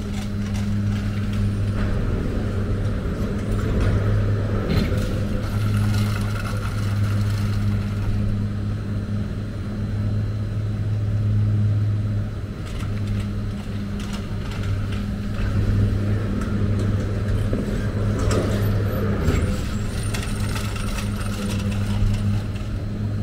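Detachable gondola lift (TCD8/10) running: a steady low electric hum from the station machinery under a mechanical rumble, with clattering twice as cabins run out of the station and along the cable.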